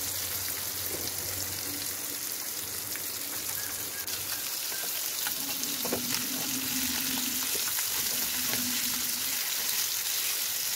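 Masala-coated sardines sizzling steadily as they shallow-fry in hot coconut oil in a pan. A metal spatula clicks against the pan a few times about halfway through as it slides in to turn the fish.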